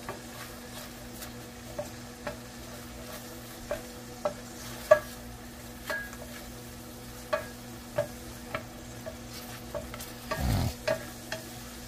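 A wooden spatula stirs diced peppers and onions sautéing in a stainless steel pan, with a light steady sizzle and irregular taps and scrapes of the spatula against the pan. A faint steady hum runs underneath.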